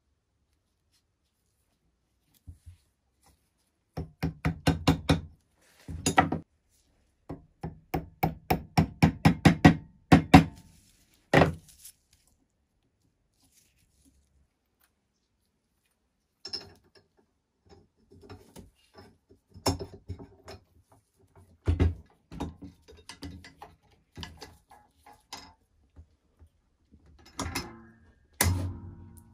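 Hammer tapping a pin into a manual potato chipper's frame during reassembly. There are quick runs of taps, several a second and growing louder, then a single hard knock, then scattered knocks and taps.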